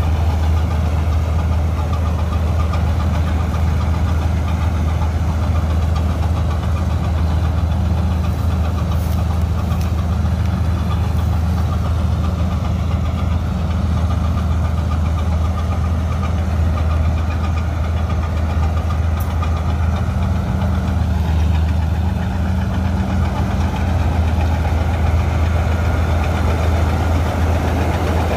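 Gill 961 combine harvester running steadily as it cuts and threshes wheat, a constant low engine drone.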